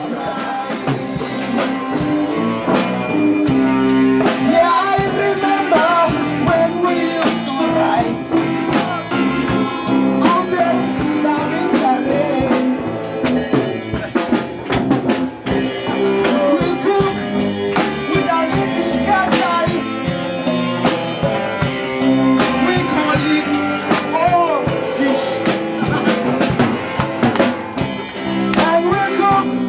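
Music with a steady beat on a drum kit and guitar, and a melody line over it.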